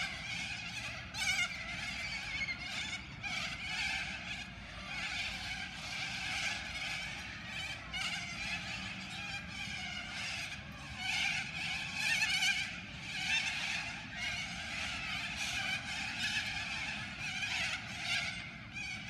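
A large flock of little corellas calling together from their roost trees: a continuous din of many overlapping calls that swells and eases.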